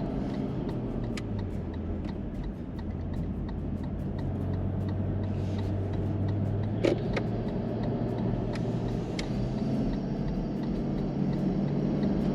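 Cabin engine and road noise of a Toyota LandCruiser 200 Series towing a caravan: a steady low drone whose pitch shifts a little as it drives, with one sharp knock about seven seconds in.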